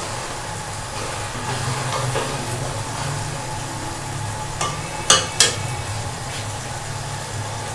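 Bitter gourds frying in spice masala in an aluminium pot, sizzling as a spatula stirs them. Two sharp knocks of the spatula against the pot about five seconds in.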